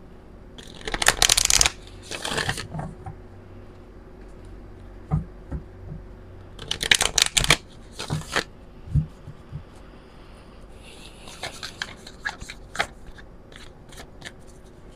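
A deck of oracle cards being riffle-shuffled by hand: two long runs of rapid card flutter, about a second in and again about seven seconds in, with lighter taps and flicks of the cards in between and near the end.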